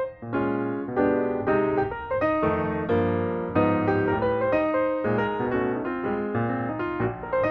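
Background music: a piano-led tune with a steady beat and a bass line.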